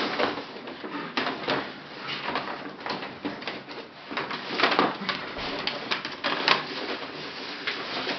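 Large paper bag crinkling and rustling in irregular bursts of crackles as puppies tug at it and push inside it.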